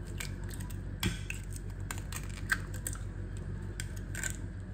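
A hen's egg being cracked open by hand and its shell pulled apart: a few small, scattered clicks and crackles of shell.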